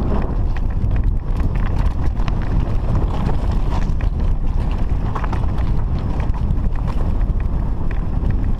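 Mountain bike rolling fast down a loose, rocky trail: the tyres clatter over stones and the bike rattles in a dense run of short clicks and knocks, under a heavy low rumble of wind buffeting the camera microphone.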